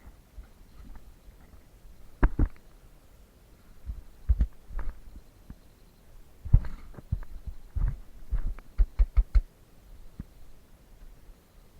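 Irregular dull thumps and knocks, with a quick run of about five sharper knocks a little after the middle.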